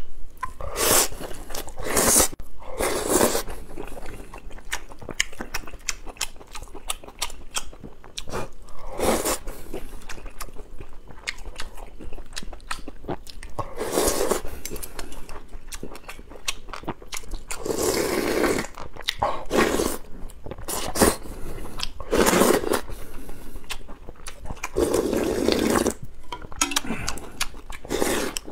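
A person eating lamb and old-cucumber soup close to the microphone: wet chewing and lip smacks throughout, with about ten louder slurps at uneven spacing.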